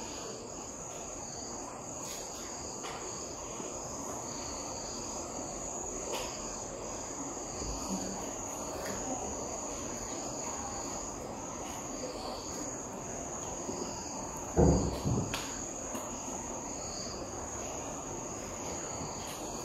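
Crickets trilling steadily in the background, with faint ticking and scratching from a marker writing on a whiteboard. A brief louder thud comes about fifteen seconds in.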